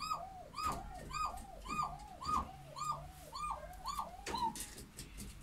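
A dove cooing in a quick rhythmic series: about eight rising-and-falling notes, roughly one every 0.6 s, stopping about four and a half seconds in.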